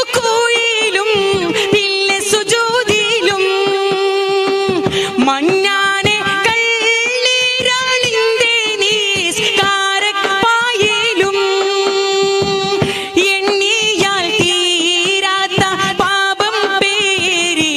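A man singing a Malayalam Islamic madh song in a mashup, with an ornamented, wavering melody and long held notes, over musical accompaniment.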